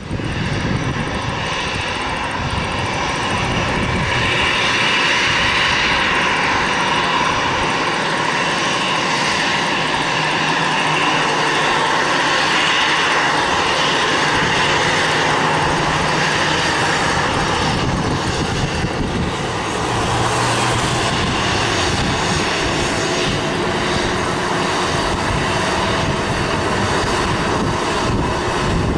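The CFM56 turbofan engines of an Airbus A320-214 running at taxi power: a steady jet whine and rumble as the airliner taxis and lines up.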